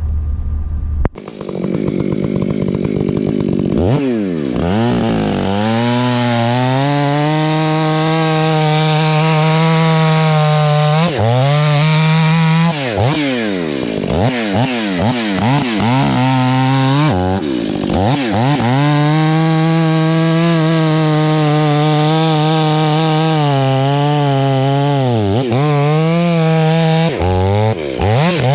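Stihl 500i fuel-injected two-stroke chainsaw with an 8-pin rim sprocket bucking firewood logs. It holds steady revs through long stretches of cutting, and several times the revs drop and sweep back up as the throttle is let off and opened again between cuts.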